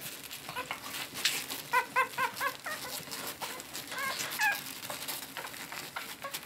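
Eleven-day-old cocker spaniel puppies squeaking while they nurse: a quick run of about five short high squeaks, then two or three more, falling in pitch, a couple of seconds later.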